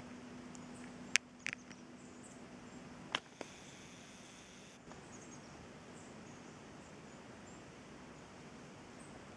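Quiet woodland background with a few sharp clicks in the first few seconds and scattered faint high chirps.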